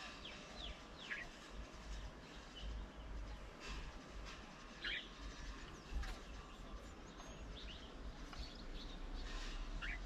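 Wild birds calling with short, scattered chirps every second or few, over a steady low background rumble.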